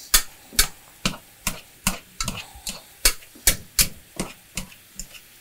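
Hand potato masher knocking against the bottom of a pot as boiled russet potatoes are mashed, about two to three sharp knocks a second in an uneven rhythm. Faint sizzling from a simmering pan sauce runs underneath.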